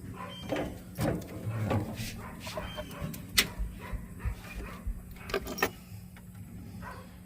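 Scattered light clicks and knocks of hose parts and a clamp being handled, with one sharp click about three and a half seconds in, over a steady low hum.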